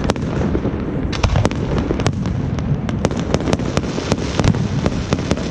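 Fireworks going off: a continuous rumble of low booms with many sharp cracks over it, coming thick and fast in the middle.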